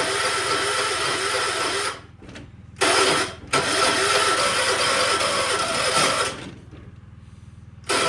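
Electric starter cranking a 1976 John Deere 300 lawn tractor's engine in repeated bursts: about two seconds, a short burst, nearly three seconds, then again near the end, without the engine catching. The owner suspects the starter is going bad.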